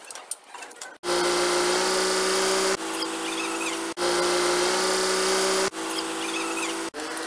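A machine motor running steadily with a pitched whine over a hiss. It starts abruptly about a second in and jumps up and down in level at several hard cuts.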